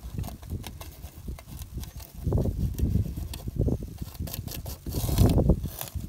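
Wind gusting on the microphone, with short scratchy clicks of a palette knife scraping ice and snow off a frozen painting panel. The gusts grow stronger about two seconds in.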